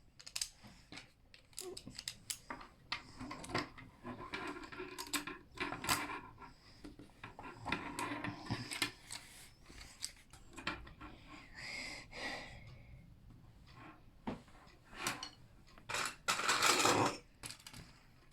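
Meccano Junior construction-kit pieces clicking and rattling as they are handled and fitted together, in many short clicks and stretches of rattling. The loudest rattle comes near the end and lasts about a second.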